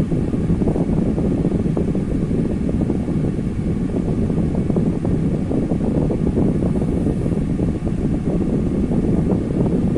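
Electric fan running steadily, its rushing air making an even noise that is heaviest low down, with a rumble.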